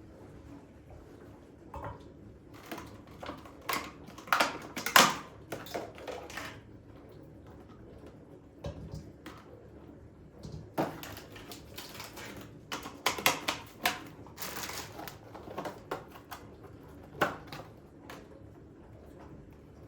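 Household items being handled: irregular clicks, taps and rustles in two busy runs, then one sharp click near the end.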